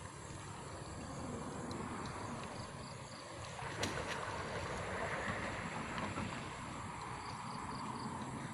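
Water sloshing and splashing as people wade waist-deep and work a hand fishing net through river water, with a single sharp click a little under four seconds in.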